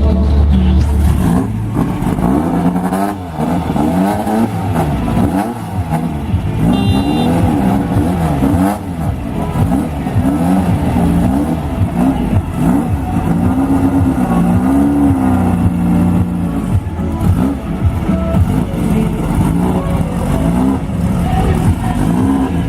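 Off-road race vehicle engines running hard, their pitch rising and falling again and again as they rev and shift.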